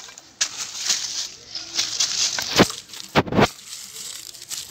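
Gritty crunching and rustling as rock dust is scooped by hand into a cut-down plastic bottle, with two dull thumps a little past halfway.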